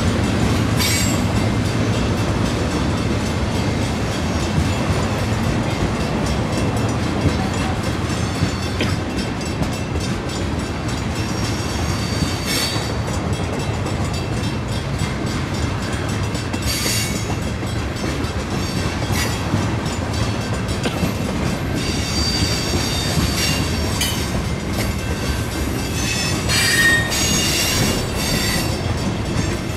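Freight train of tank cars rolling past with a steady rumble of wheels on the rails. Brief high-pitched wheel squeals and screeches cut in now and then, most of them near the end.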